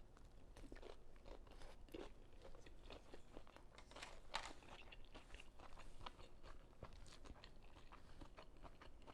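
Faint, irregular chewing of a big mouthful of tofu spring roll stuffed with vermicelli, bean sprouts and carrots, dipped in peanut sauce.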